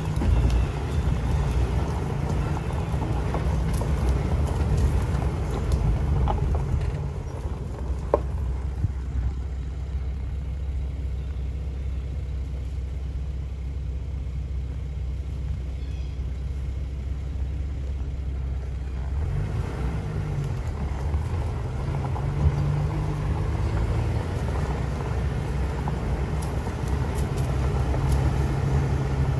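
A vehicle engine running at low speed, a steady low drone that settles lower and softer about eight seconds in and picks up again a little before twenty seconds.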